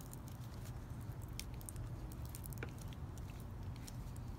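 Garden clippers snipping through thick rosemary stems at the end of a herb bundle: a few scattered crunching snips, over a low steady hum.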